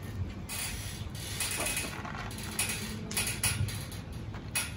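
A mother cat and kittens eating dry kibble and wet food from a plastic tray: irregular crunching and chewing clicks.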